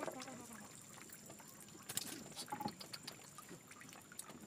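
Faint trickling water with a few light clicks and knocks, the sharpest about two seconds in.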